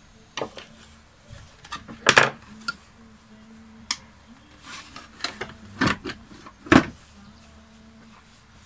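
Knocks and clunks of the red plastic housing of an Eta Neptun Trio vacuum cleaner being handled as its switch wiring is fitted and the top cover is set back onto the body. About a dozen separate knocks, the loudest about two seconds in and just before seven seconds in.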